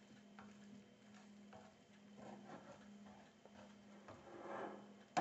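Spatula scraping and tapping faintly against a steel frying pan while cooking on the stovetop, with a low steady hum underneath.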